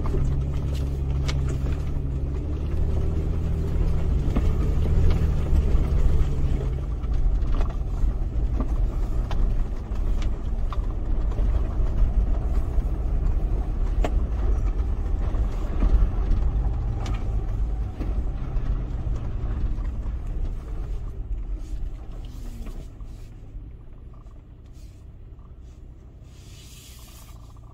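Toyota FJ Cruiser's V6 engine and drivetrain heard from inside the cabin: a steady low rumble with frequent knocks as it drives over a rough dirt track, getting quieter in the last few seconds as the vehicle slows.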